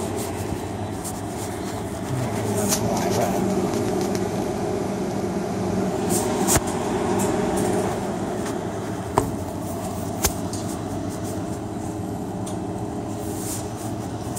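Steady hum of refrigerated glass-door drink coolers, their compressors and fans running, with three sharp clicks or knocks around the middle.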